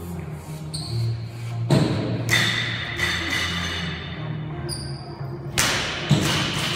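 Music plays throughout while an athlete doing burpee box jumps makes a few heavy thuds against the floor and a wooden box. The loudest thud comes near the end, as the feet land on the box.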